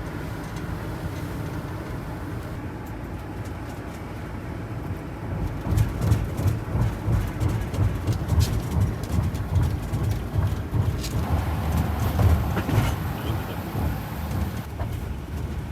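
Low rumble of a moving vehicle, growing heavier and more uneven from about five seconds in.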